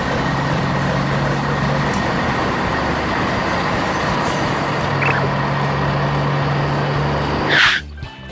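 Heavy truck engine running steadily, ending about seven and a half seconds in with a short falling hiss of air, after which the engine sound cuts off.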